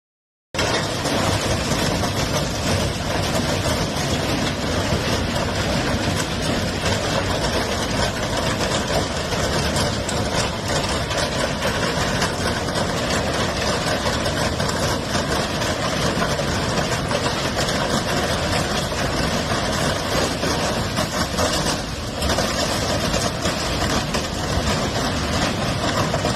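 Freight train of autorack cars rolling slowly past just below: a loud, steady rumble and running noise of the train, starting suddenly about half a second in.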